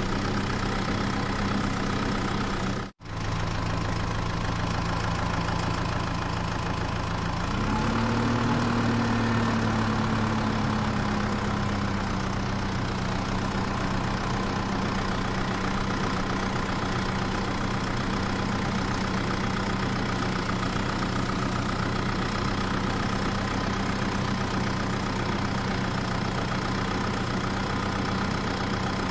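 Steady engine-like idling drone with an even hum. It cuts out for an instant about three seconds in, rises in pitch about seven seconds in, then eases back down over the next few seconds.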